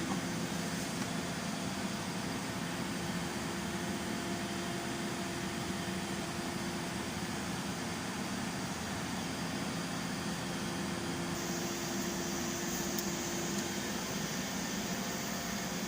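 A steady mechanical hum over even hissing noise, holding level throughout with faint low tones.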